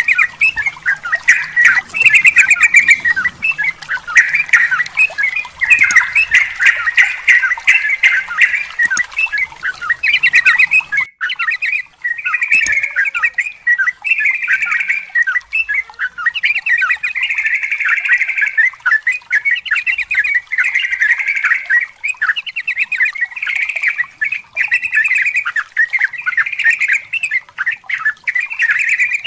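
Yellow-vented bulbul (trucukan) singing long, rapid runs of chattering, bubbling notes with hardly a pause, broken briefly about eleven seconds in.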